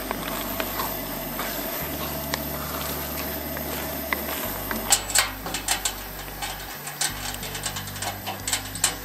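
Background music with a steady bass line. From about five seconds in, a metal utensil clinks and scrapes repeatedly against a cooking pot as food is stirred.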